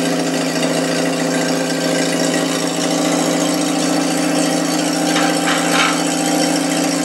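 UZAM-412 four-cylinder engine of a homemade pickup idling steadily. A brief higher rasping noise comes about five seconds in.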